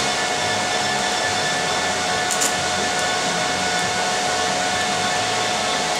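TIG welding arc running steadily: a continuous hiss with a steady tone through it, and one brief sharp tick about two and a half seconds in.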